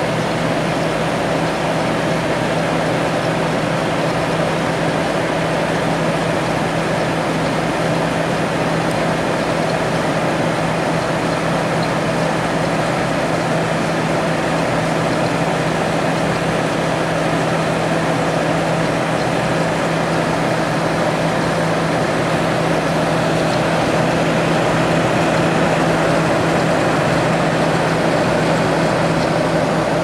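Whirlpool-built Hampton Bay 25-pint dehumidifier running steadily: its fan's rush of air over a constant hum from the fan motor and reciprocating compressor. The unit is running properly with its refrigerant charge intact, its coil cooling.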